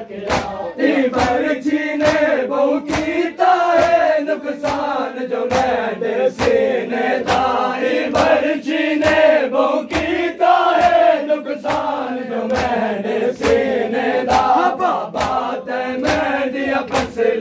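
A crowd of men chanting a Punjabi noha (mourning lament) in unison while performing matam, beating their chests with their hands in time. The slaps are sharp and come about two a second under the chant.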